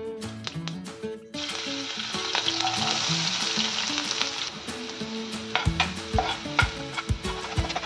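Hot oil in a nonstick frying pan starts sizzling suddenly about a second in as food goes into it; the sizzle eases after a few seconds. Near the end a spatula stirs chopped onions and green chillies, knocking and scraping against the pan.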